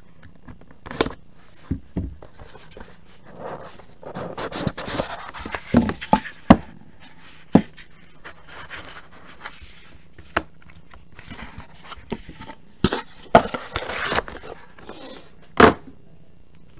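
Handling noise of a cardboard trading-card box being opened and handled: irregular knocks and clicks with stretches of scraping and rustling, the sharpest knocks about six seconds in and near the end.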